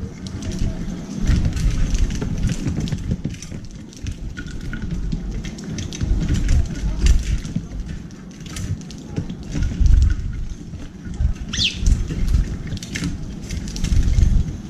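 Eurasian tree sparrows pecking sunflower seeds in a metal tray: a steady crackle of many small pecks and clicks, broken by low thumps and flutters of birds landing and flapping close by. One sharp, short chirp comes late on.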